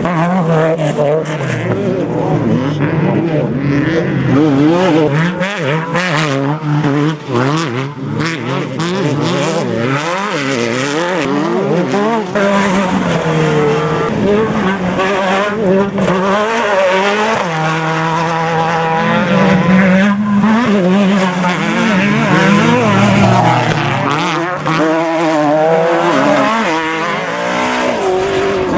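Off-road desert race truck engines revving hard, their pitch climbing and dropping again and again as they accelerate and shift.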